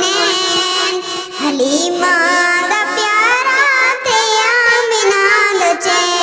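Solo voice singing a Punjabi naat, an Islamic devotional song in praise of the Prophet, holding long notes that it ornaments with wavering turns of pitch.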